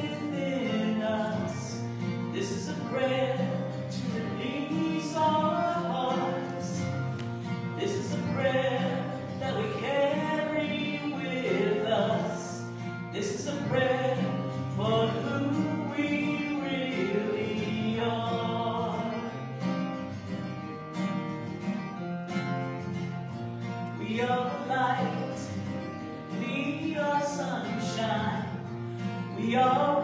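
A woman singing a song, accompanied by an acoustic guitar.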